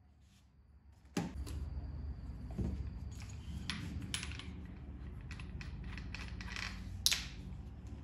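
Metal clicking and clinking of core drill bits being picked out of their case and threaded onto an angle grinder, a string of short sharp clicks. A steady low hum begins with a click about a second in and continues.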